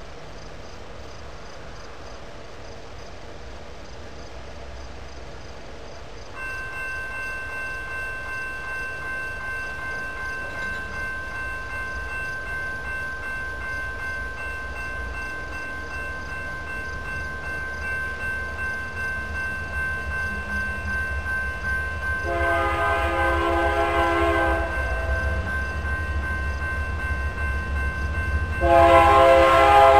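Approaching diesel freight train led by GE C44-9W locomotives: a low rumble that grows louder, with steady high tones starting about six seconds in. The locomotive air horn sounds a blast of about two and a half seconds about three-quarters of the way through, and a louder blast starts near the end.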